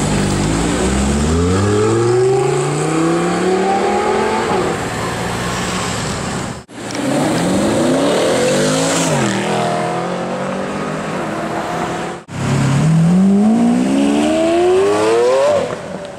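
Supercar engines accelerating hard, in three short clips joined by abrupt cuts. In each the engine note climbs steeply in pitch; in the middle clip it dips briefly before climbing again.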